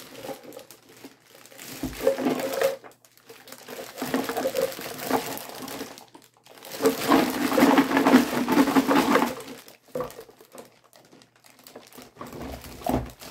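Clear plastic bag crinkling as it is handled and turned over, in uneven bursts that are loudest from about seven to nine seconds in.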